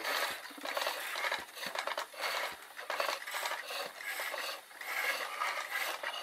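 Several foot-powered pole lathes at work, turning green wood: tools scrape into the spinning wood in repeated bursts, roughly one or two a second, with the cutting strokes. Sharp clicks and knocks from the lathes come in among the scraping.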